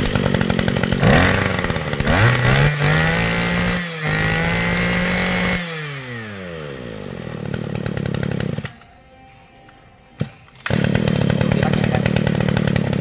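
Maruyama KC20NX 20cc two-stroke brush cutter engine running and being revved. Its pitch climbs several times, is held high, then falls back as the throttle is let off. The sound drops away for about two seconds and then the engine runs steadily again.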